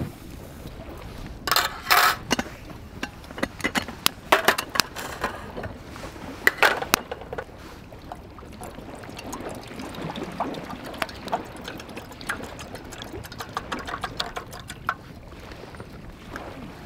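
Firewood crackling and popping in a small metal fire stand, with sharp snaps in the first seven seconds and lighter crackles after. Later, water is poured from a plastic bottle into an aluminium Trangia kettle.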